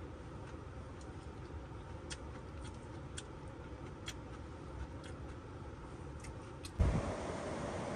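Quiet sounds of a person eating: a few faint, scattered clicks of a bowl and food being handled over low steady background noise. Near the end a louder rushing hiss of wind noise starts suddenly.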